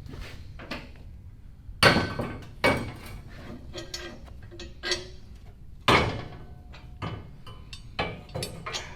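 Steel parts being knocked and handled: several sharp metal clanks that ring briefly, the loudest about two seconds in and about six seconds in, with lighter clinks between them.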